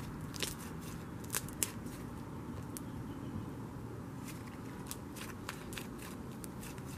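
Soft cloud cream slime squished, folded and stretched by hand, making scattered small crackling pops and clicks, a few louder ones about a second and a half in. A steady low rumble of passing traffic runs underneath.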